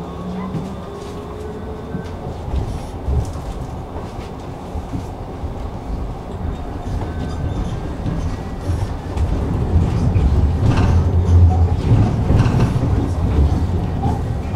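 Tram running along the track between stops: a steady low rumble with the clatter of wheels on rail, getting louder from about eight seconds in.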